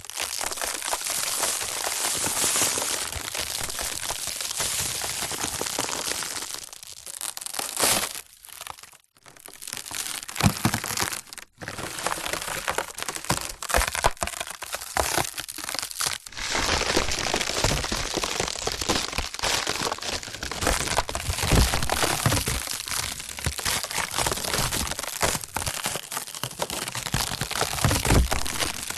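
Wood splintering, cracking and breaking sound effects, one after another: dense crackle with a few brief pauses between takes.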